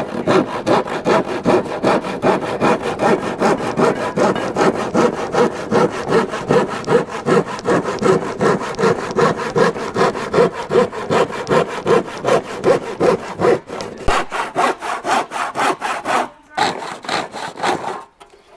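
Handsaw cutting an MDF panel with fast, even back-and-forth strokes, about four a second. The sawing pauses briefly near the end, then a few more strokes follow.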